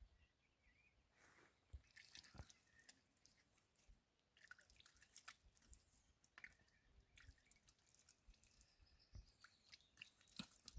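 Near silence, broken by faint scattered clicks and ticks.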